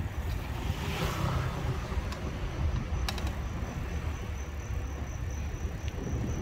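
Steady low rumble of wind and road noise while riding a bicycle along a city street, with a motor vehicle passing about a second in. A faint, steady high-pitched tone comes in during the second half.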